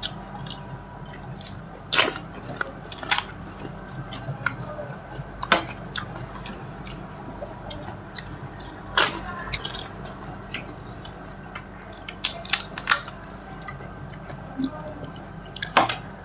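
A person chewing and crunching crisp pani puri shells, with sharp crunches every few seconds over a steady low hum.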